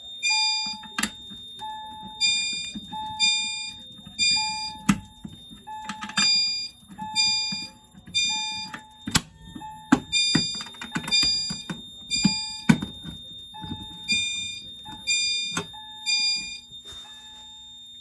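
Fire alarm chime strobes on a Fire-Lite MS-5012 system sounding in alarm after a manual pull station has been pulled. Soft chime tones repeat about once a second, each fading away, with sharp clicks in between, and they stop near the end.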